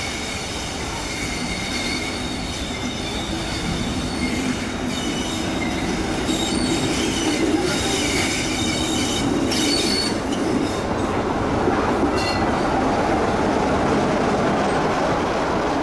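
Tram running on rails, its wheels squealing with several high steady tones over a rumbling rolling noise. The squeal fades after about ten seconds while the rumble grows somewhat louder.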